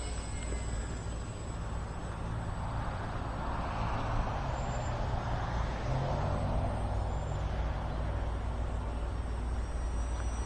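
Electric motor and propeller of a small RC biplane humming in flight, growing louder from about three seconds in and fading again after about eight as it passes nearer. Wind rumbles on the microphone throughout.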